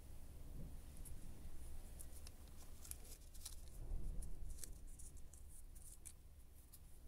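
Faint paper rustling and small crisp clicks as a printed paper degree disc is handled and pressed by hand onto the end of a lathe spindle.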